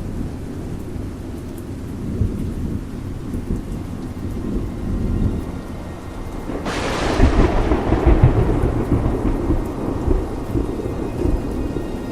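Rain with low rolling thunder; about two-thirds of the way through, a sharp thunderclap breaks in and rumbles away over several seconds.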